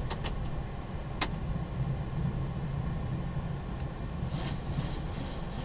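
Steady low rumble inside a Boeing 737-800 cockpit as the airliner rolls on the ground after landing. A few light clicks come in the first second or so, and a short hiss comes about four seconds in.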